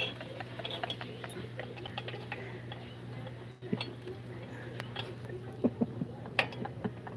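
Scattered light metallic clicks and ticks of small brake-shoe hardware being handled and fitted on a drum-brake backing plate, over a steady low hum.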